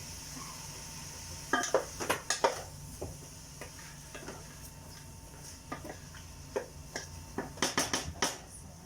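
A utensil clinking and scraping against a cooking pot as meat and curry are stirred, with clusters of sharp clinks about one and a half seconds in and again near the end, over a faint sizzle that fades after a few seconds.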